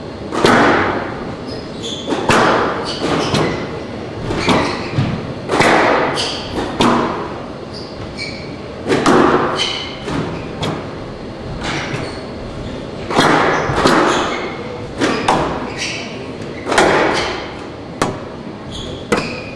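Squash rally: the hard rubber ball cracking off racquets and the court walls, sharp knocks roughly once a second in an irregular rhythm, each ringing on in the large hall.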